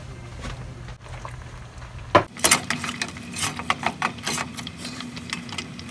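Steady low hum over a covered simmering pot. About two seconds in, a sharp knock, then a run of clacks and scrapes as a wooden spoon stirs crab pieces in coconut milk in a stainless-steel pot.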